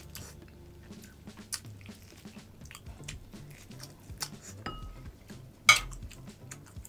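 Close-up wet chewing, smacking and tearing as a man eats meat off a beef tomahawk steak bone, with many short sharp clicks. One louder crackling burst comes a little before the end. Quiet background music underneath.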